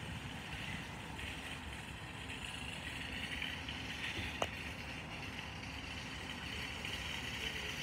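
Jet airliner flying over, a steady engine noise with a higher whine that swells slightly midway. A single sharp click about four and a half seconds in.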